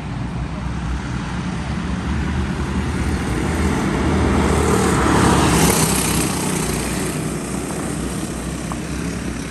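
A pack of racing karts with Predator single-cylinder engines running at speed as they pass. The engine drone swells to its loudest about halfway through, then fades as they move away.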